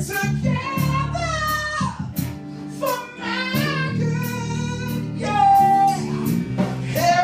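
Live gospel worship music: singing held and sliding between notes over a band, with drums keeping a steady beat marked by cymbal strokes about twice a second.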